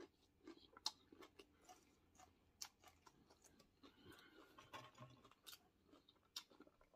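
Faint chewing: scattered soft mouth clicks and smacks of someone eating fried catfish, with a few sharper clicks now and then.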